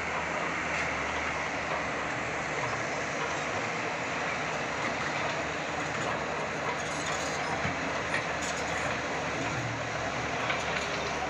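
Caterpillar D6 crawler bulldozers at work: heavy diesel engines running steadily, with the clatter of steel tracks and a few faint knocks.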